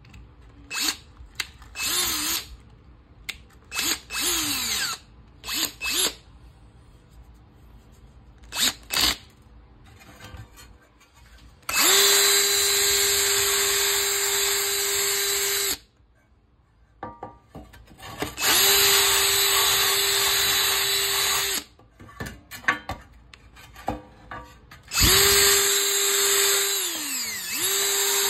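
Hercules 20V cordless drill with a wire cup brush: a few short trigger blips that spin up and back down, then three longer runs scrubbing rust off a rusted metal pan. Each run is a steady motor whine under the scratchy hiss of the wire bristles on the metal, and the motor winds down with a falling pitch near the end.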